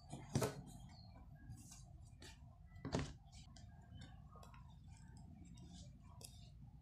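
Light clicks and taps of a smartphone being handled on a tabletop, with two sharper knocks about half a second in and about three seconds in.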